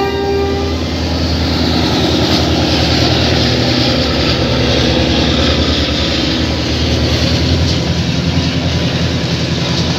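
Sri Lanka Railways Class S13 diesel multiple unit passing slowly at close range: its diesel engines give a steady low drone under the rumble and clatter of the wheels on the rails. The last note of its horn cuts off in the first second.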